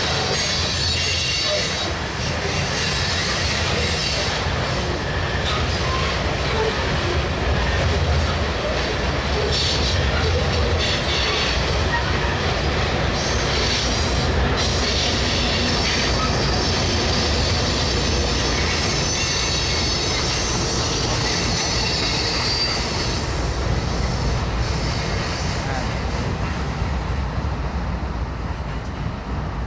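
Freight train cars rolling past on steel wheels, a loud steady rumble with wheels squealing against the rail on and off and some clickety-clack over rail joints.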